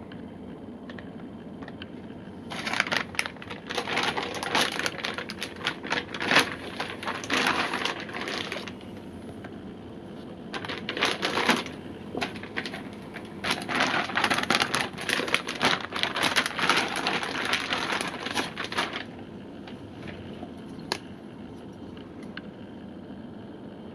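Thin clear plastic packaging bag crinkling and crackling as it is handled and a pair of fins is worked out of it. The crinkling comes in two long spells with a short pause between them.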